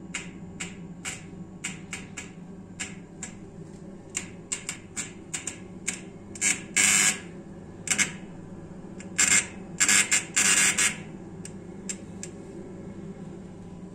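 Combi boiler's main control board making irregular clicks and short loud buzzing bursts over a steady low hum. The noise is typical of low or unstable mains voltage rather than a failed board.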